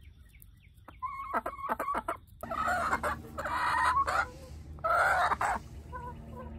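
Chickens clucking and calling: a short pitched call about a second in, then two louder, longer calls at about two and a half and five seconds in.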